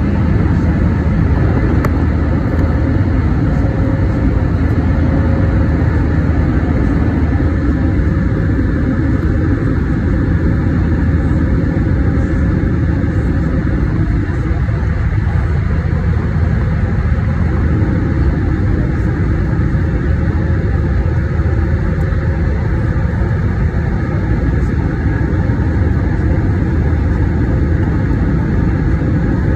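Airbus A320 cabin noise during the climb, heard from a window seat just ahead of the wing: the IAE V2527-A5 turbofans and rushing airflow make a steady, loud, low drone with a faint steady hum above it.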